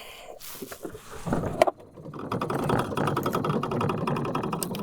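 A knock and a click, then about two seconds in a small boat's motor starts up. It runs with a steady, fast mechanical rattle as the boat gets under way trolling.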